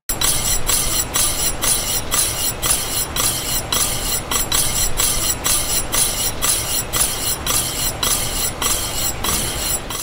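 Chariot CX disc brake rotor rubbing against the caliper's pads as the wheel turns: a steady scraping that pulses about three times a second. This is a dragging brake, the kind of rub that the adjustment is meant to cure.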